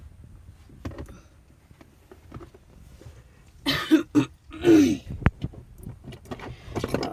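A person coughs or clears his throat in two short loud bursts about four seconds in, amid light scattered clicks and taps, with one sharp click just after the coughs.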